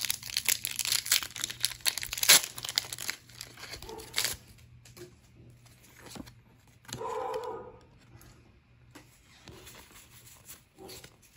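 Foil wrapper of a Pokémon GO booster pack being torn open and crinkled by hand, a dense crackling that is loudest just after two seconds and dies down after about four seconds into fainter rustling.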